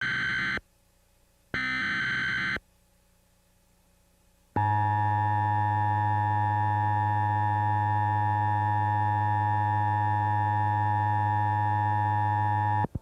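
Emergency Alert System header: two short screeching digital data bursts about a second apart, then the long steady two-tone EAS attention signal, which cuts off abruptly just before the end.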